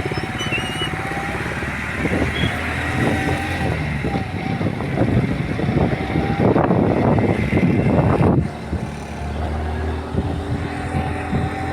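Street traffic: motor vehicle engines running steadily, with a louder, rougher stretch from about six and a half seconds in that cuts off abruptly a couple of seconds later.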